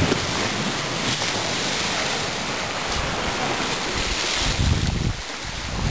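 Wind blowing across the microphone: a steady rush, with heavier low buffets several times in the second half.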